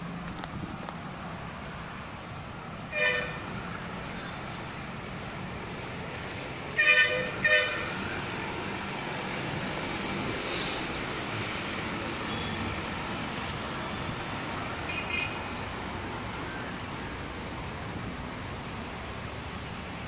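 Vehicle horn honking: one short toot about three seconds in, two quick toots just before the midpoint, and a fainter short toot later, over a steady hum of road traffic.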